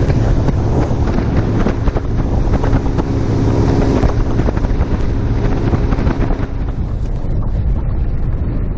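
Strong wind buffeting the microphone in a bass boat, with the steady hum of a boat motor under it; the motor tone drops out about seven seconds in.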